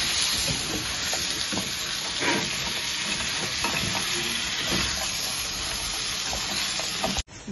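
Rice, squid and prawns frying in oil in a paella pan, sizzling steadily while a wooden spatula stirs and scrapes through them. The sizzle cuts off suddenly near the end.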